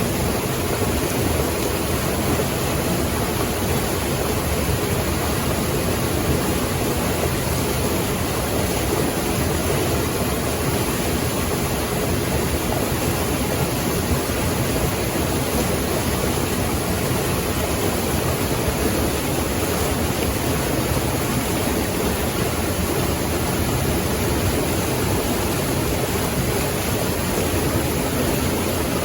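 Running water rushing steadily and loudly, with no break or change.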